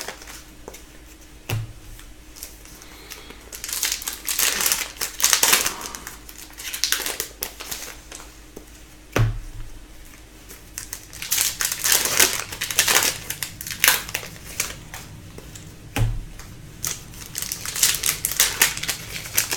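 Plastic foil wrappers of Upper Deck hockey card packs crinkling in the hands in bursts as packs are opened and cards handled, with three sharp knocks spread through.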